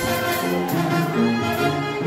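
Band music with brass instruments playing a tune, notes changing every fraction of a second.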